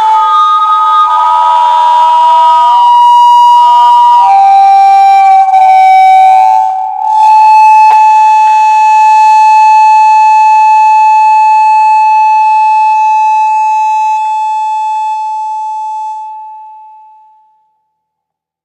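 Loud acoustic feedback howl from an amplified surface covered in iron dust and furnace ash, set off by the material's own fall onto it. The piercing whistle-like tone jumps between pitches a few times, settles on one steady note about seven seconds in, and fades away near the end.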